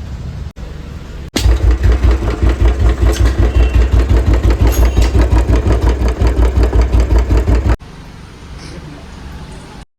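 Royal Enfield Bullet 350's single-cylinder engine running, in several spliced takes. It is moderate at first, then loud with a fast, even thump from about a second and a half in. It drops back to a quieter run near the end.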